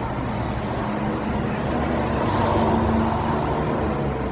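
Steady low rumble of motor vehicles running, swelling a little about halfway through.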